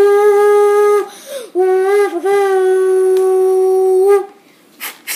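A boy's voice imitating a steam locomotive whistle: a long held 'woo' hoot that breaks off about a second in, then a second, longer hoot at the same pitch. Just before the end, quick hissing chuff-like strokes begin.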